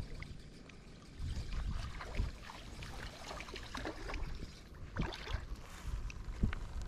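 Wind rumbling on the microphone, with scattered light clicks and rustling as a fishing reel is cranked to bring in a small fish, and a few sharper clicks about five seconds in.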